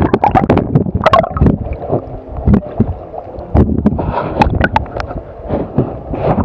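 Sea water sloshing and slapping against a camera held at the waterline, with gurgling as it dips under the surface: a dense, irregular run of short splashes and knocks over a low rumble.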